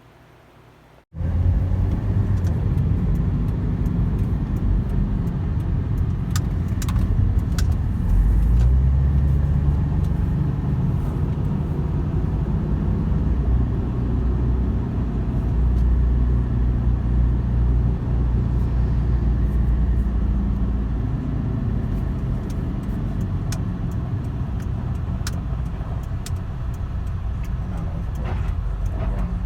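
Low, steady rumble of a car's engine and tyres heard from inside the moving vehicle, cutting in suddenly about a second in, with light rattles over it.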